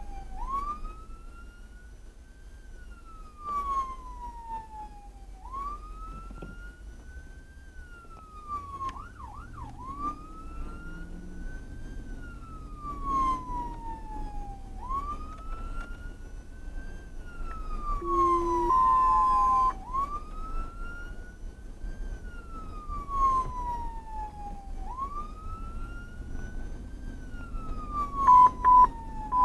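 Emergency vehicle siren on a wail, rising and falling about every five seconds over engine and road rumble. About nine seconds in it switches briefly to a fast warble. A steady horn-like blast sounds about two-thirds through, and short loud blasts come near the end.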